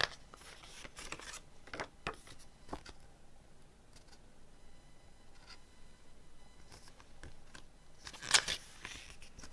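Pages of a paper CD booklet being turned and handled, a few short rustles with the loudest page turn about eight seconds in.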